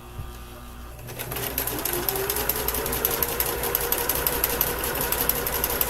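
Basic Kenmore electric sewing machine starting up about a second in, its motor speeding up and then running steadily with a rapid, even clatter of needle strokes as it stitches along the edge of cross stitch fabric.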